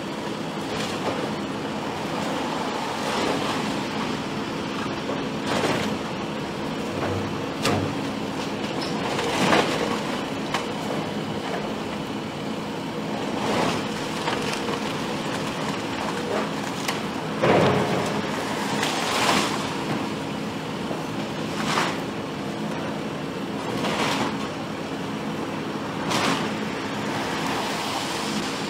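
A heavy machine's diesel engine running steadily during a house demolition, with sharp cracks and crunches of the structure being broken every two seconds or so.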